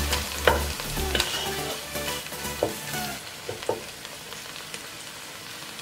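Vegetables sizzling on high heat in a non-stick pan while a wooden spatula stirs them, knocking and scraping against the pan. About three seconds in, the stirring stops and the sizzle drops to a quieter hiss with a few scattered clicks.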